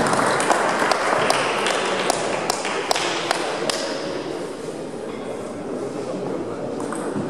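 Table tennis balls clicking off bats and tables, a quick irregular run of sharp clicks that thins out after about four seconds, over a low murmur of voices.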